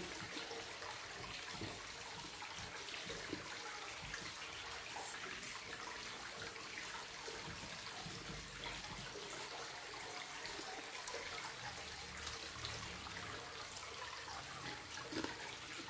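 Steady, faint sound of running water trickling, with a few small ticks on top.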